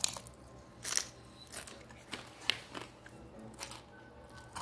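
Mouth chewing a crisp fried tortilla piece close to the microphone: about five separate crunches, roughly one a second, with quiet between.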